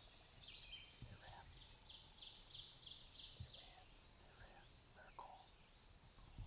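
Faint woodland birdsong: a songbird sings a quick series of high repeated notes through the first half, with a few softer calls from other birds scattered after it.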